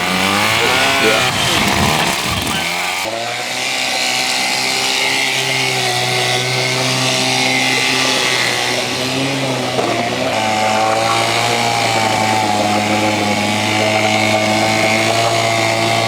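Johnson Seahorse two-stroke outboard motor running, its pitch swinging up and down for the first few seconds, then running steadily with a small change in pitch about ten seconds in.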